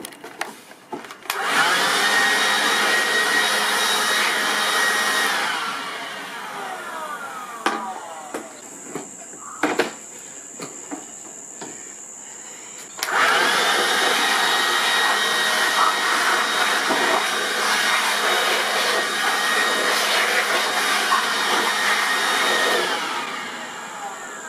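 Ozito cordless leaf blower running at full speed with a high whine, twice: a short blast, then after a gap of handling knocks a longer one of about ten seconds. Each time it is switched off, its pitch falls as the fan spins down.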